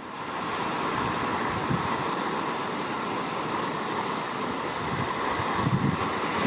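Sea water washing over black lava rocks at the shoreline: a steady rushing hiss of surf, with low rumbling growing near the end.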